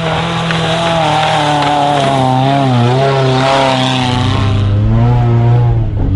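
Engine of a lifted hatchback mud car running hard under load, its pitch rising and falling several times as the throttle is worked over rough ground.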